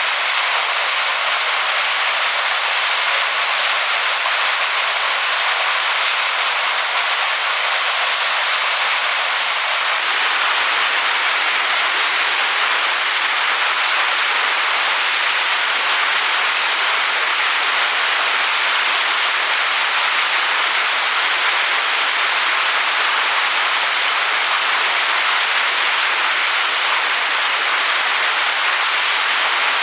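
Waterfall pouring onto rocks: a steady, loud rush of water that is strongest in the hiss and has little low rumble.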